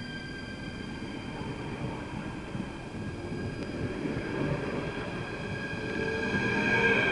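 NS Sprinter electric multiple unit running past along the platform: a whine of several steady high tones over the rumble of the wheels, growing louder as the last carriage goes by near the end.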